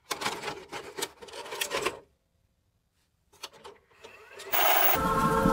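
Rough, irregular scraping or rasping strokes for about two seconds, then a silent gap, a few clicks and a rising burst of noise. Music with steady tones and a low beat starts near the end.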